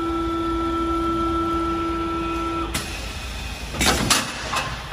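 STYLECNC STL1530A auto-feeding CNC wood lathe running with a steady motor whine that cuts off a little over halfway through, followed by a few short mechanical clatters from the machine.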